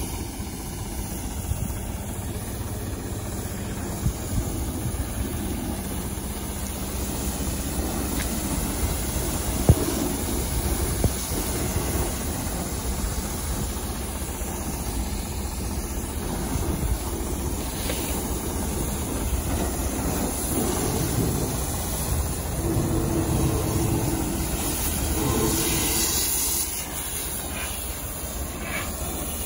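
High-pressure spray gun jetting water onto a steel tractor trolley: a steady hiss of spray over a constant engine-driven pump drone, with a couple of brief knocks.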